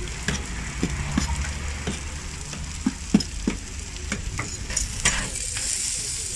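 A metal spatula scraping and knocking through shredded, moist barbacoa meat in a steamer pot, in irregular clicks and scrapes. Near the end a steady sizzle of sliced onions frying on a flat-top griddle takes over.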